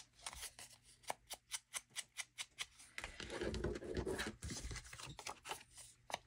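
Ink blending tool brushed in quick short strokes across the edge of a paper strip, a scratchy rub about four times a second. About three seconds in, the strokes pause for a stretch of paper rustling as the strip is handled, then resume.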